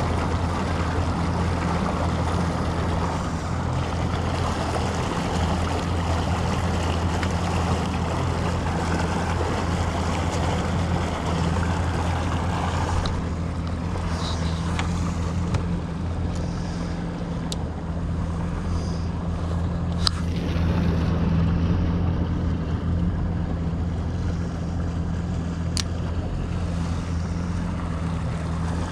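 A boat's motor running steadily at trolling speed as a low, even hum, with water rushing along the hull. The rushing eases about halfway through, and a few light clicks come later.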